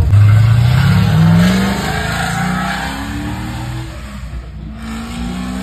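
Vanderhall Venice three-wheeler's engine accelerating away. Its pitch climbs steeply, drops at a gear change and climbs again, growing fainter as it goes.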